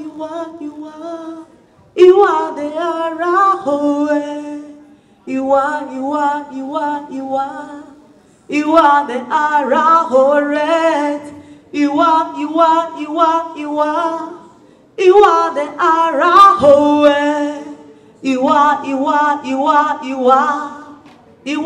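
A woman singing a gospel song unaccompanied into a microphone, in about seven phrases with short pauses between them and a wavering vibrato on the held notes.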